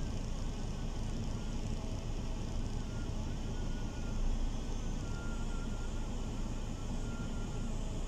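Steady low rumble of road traffic and idling cars waiting in a stopped queue. A faint, thin, wavering tone comes and goes above it.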